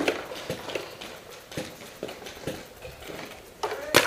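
Paintball markers firing around the field: short irregular pops about every half second, with a louder, sharper shot near the end.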